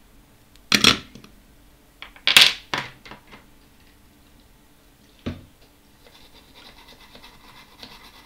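Sharp clattering knocks of hard objects handled on a workbench: one about a second in, a quick cluster of three around two and a half seconds, and one more just past five seconds. Faint rubbing follows.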